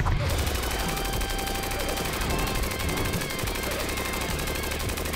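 Rapid automatic gunfire, a fast, even stream of shots without a break.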